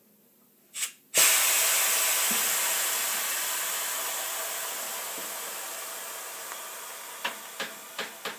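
Vehicle lift being let down: a short click, then a sudden loud hiss about a second in that fades steadily over several seconds, followed by a few sharp clicks near the end.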